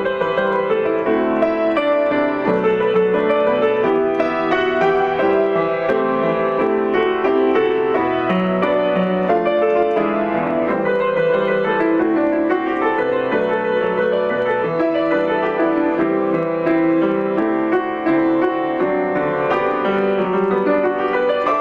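Piano playing a melody over chords, with many notes struck in quick succession.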